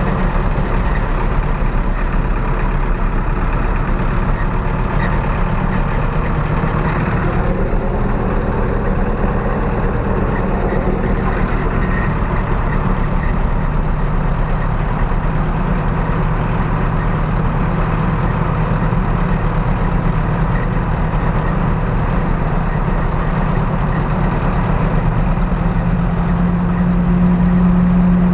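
Zetor 6745 tractor's four-cylinder diesel engine running steadily while hauling a load of manure. The engine note gets louder over the last couple of seconds.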